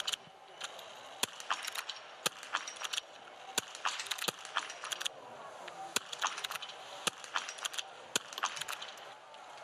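Small-bore .22 biathlon rifles firing on the shooting range: dozens of sharp cracks at uneven intervals from several athletes shooting at once, over a steady background hiss.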